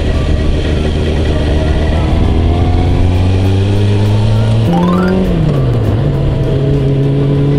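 Kawasaki ZZR400 inline-four motorcycle engine running under way, its pitch climbing steadily, then changing abruptly about five seconds in and falling back before holding steady.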